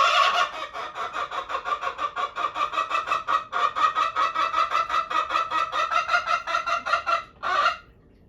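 Female Araucana chicken cackling loudly: a long call, then a fast run of clucks at about six a second, and one last loud call near the end before it stops. The hen's calling to be let out for a walk.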